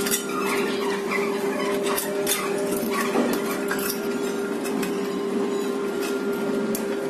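Scattered light metal clicks and clinks as the sheet-metal leg and frame parts of a large-format printer are handled and fitted, over a steady hum.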